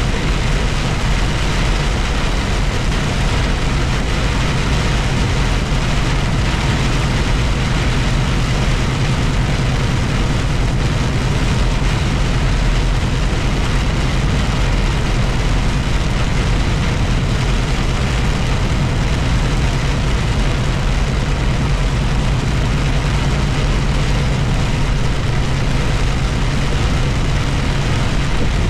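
Steady low engine drone and road noise inside a vehicle cab driving in rain, with an even hiss of rain and wet tyres.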